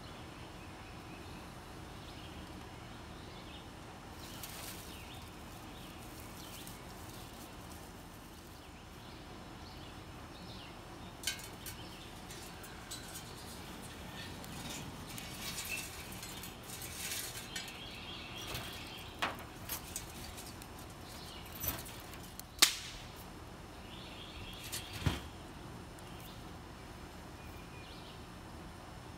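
Fire being lit in a tin-can hobo stove: brief scraping, then crackling of burning pine-needle tinder and scattered sharp snaps and clatters as sticks are broken and fed into the metal can. The loudest snap comes about three-quarters of the way through.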